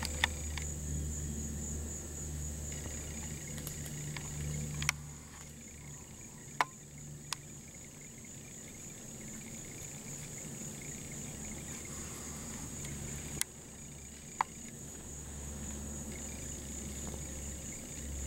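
Steady high-pitched chorus of insects, with a low rumble beneath and a handful of short, sharp clicks scattered through.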